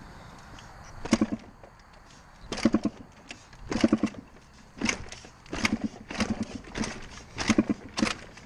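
A small dirt bike being kick-started over and over. There are about nine kicks, each a short burst of the engine turning over without catching, coming faster toward the end. The engine won't start, which the rider puts down to a fouled spark plug.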